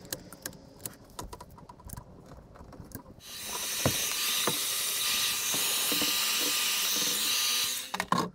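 A few light clicks and rattles of tools being handled, then about three seconds in a heat gun starts blowing with a steady hiss for nearly five seconds, shrinking heat-shrink tubing over a freshly crimped cable lug. It cuts off near the end.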